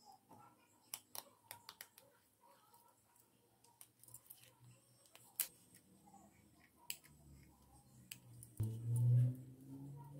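Short, sharp clicks and snips of a small blade cutting through the stitching that holds a sandal strap on. A louder low drone swells about nine seconds in.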